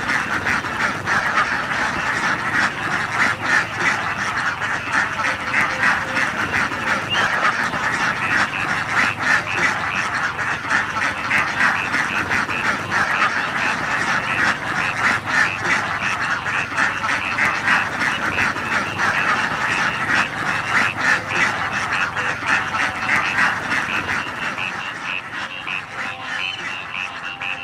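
A large flock of young domestic ducks quacking continuously, many calls overlapping into a dense chorus, a little quieter in the last few seconds.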